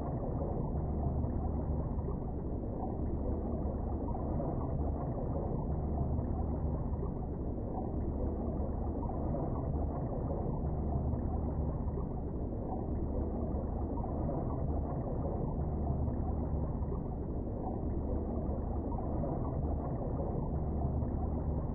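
Steady, muffled rush of river current flowing over a gravel bed, heard underwater through a submerged camera.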